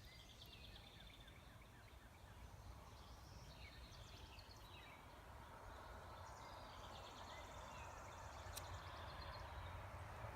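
Near silence: faint outdoor ambience with small birds chirping, a low rumble and one sharp tick about eight and a half seconds in.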